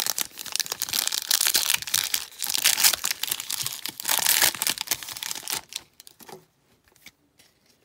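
Foil wrapper of a Panini Prizm football card pack being torn open and crinkled in the hands, a busy run of rustling that dies away about six seconds in.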